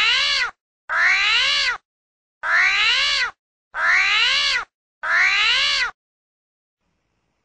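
One recorded animal call, rising then falling in pitch, played five times over in identical copies just under a second long with short gaps, then it stops.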